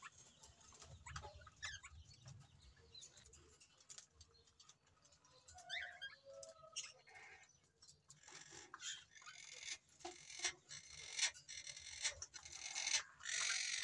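Aviary birds calling: scattered short chirps and squawks that become busier and louder with raspy calls in the second half, and chicken clucking among them.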